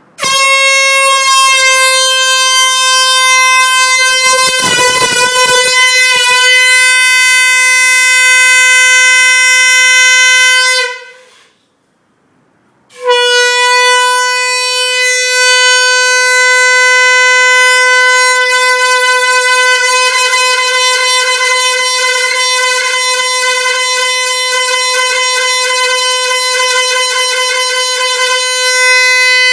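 A horn giving one long, steady, single-pitch honk for about eleven seconds that trails off, then, after a gap of a second or so, starts again abruptly and holds on. A short burst of low noise sounds under it about five seconds in.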